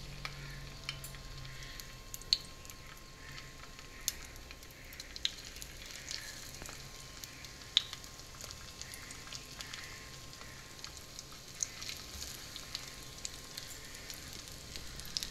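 Egg-dipped, breadcrumb-coated bread cutlets shallow-frying in a little hot oil in a pan. The oil sizzles steadily, with scattered sharp pops and crackles of spitting oil.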